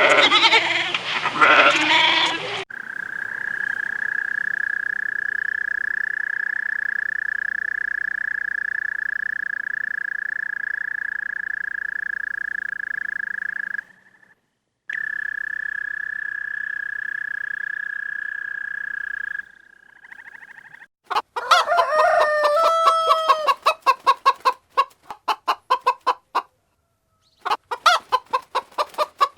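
A steady, high, whistle-like tone held for about sixteen seconds with a brief break partway, then chickens clucking in quick runs of clucks for the last several seconds.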